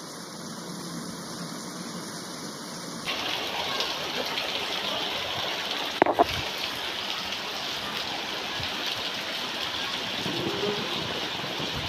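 Shallow, muddy floodwater rushing across a paved yard: a steady wash of noise that becomes louder and fuller about three seconds in, with one sharp knock about six seconds in.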